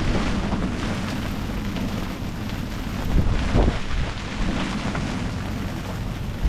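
Storm-force wind buffeting the microphone in gusts, a dense rumbling noise with a heavier blast about three and a half seconds in.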